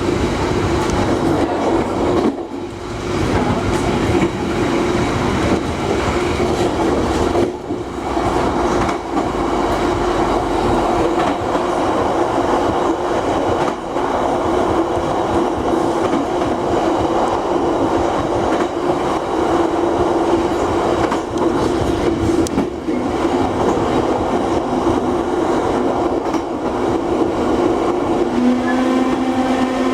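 Rail vehicle STB 5047 running on the track, with steady wheel-and-rail rumble and a constant hum. Near the end a new pitched squeal with several overtones sets in, typical of its disc brakes squealing as it brakes.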